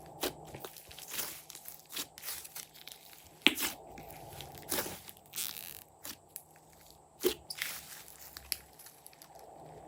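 Glossy slime being squished and kneaded by hand, giving irregular wet clicks and crackly pops, two of them louder, about three and a half seconds in and near seven seconds.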